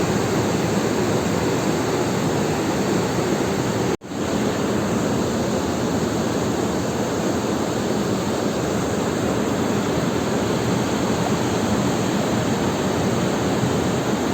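Steady rush of fast-flowing river water, broken by a brief dropout about four seconds in.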